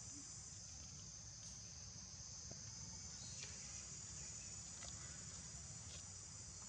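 Faint, steady high-pitched drone of an insect chorus, over a low rumble.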